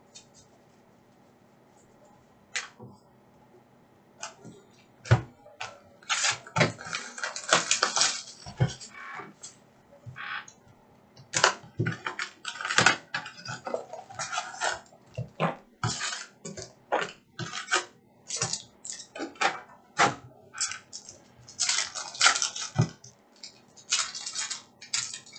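Cardboard hockey card hobby box being opened and foil card packs handled and torn open: irregular crinkling, rustling and sharp clicks, starting about five seconds in.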